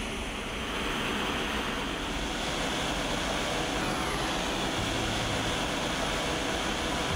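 Gas torch flame burning with a steady, even rushing hiss, heating a tool-steel cutter to hardening temperature.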